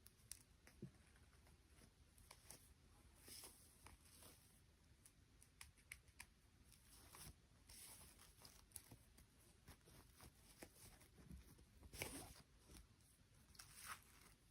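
Near silence with faint scattered clicks and light rustles of handling, a slightly louder cluster of clicks near the end.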